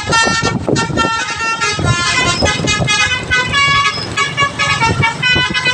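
Basuri musical bus horn playing a fast melody of short horn notes, over rumbling engine and street noise.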